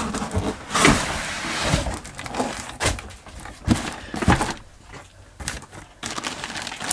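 A cardboard box with polystyrene packing being shifted and handled, giving irregular knocks and scrapes. A plastic carrier bag inside starts rustling near the end.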